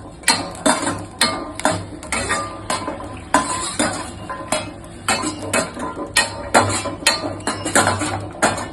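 Metal spatula stirring green chillies and garlic in a kadai, clinking and scraping against the pan about twice a second.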